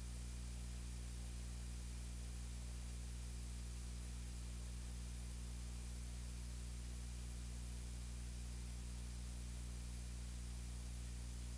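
Steady low electrical hum over constant hiss, with no speech heard.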